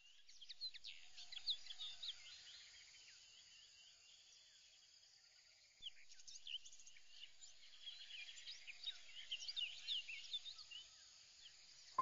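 Faint ambience of high-pitched chirping wildlife: many short chirps and twitters over a low hiss, thinning out for a few seconds in the middle and picking up again about six seconds in.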